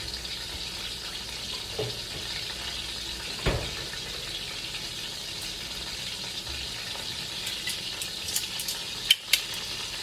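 Oil frying in a pan, a steady sizzling hiss with scattered small crackles. A knock about three and a half seconds in and two sharp clicks near the end.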